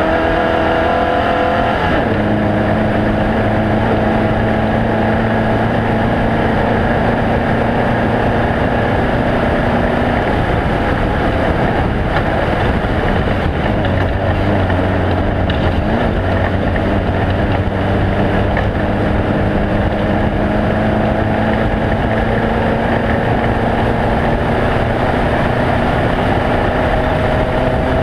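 Off-road race vehicle engine running hard and steadily at speed, over a constant rush of wind and terrain noise. Its pitch steps down about two seconds in, then shifts a few more times as the throttle changes.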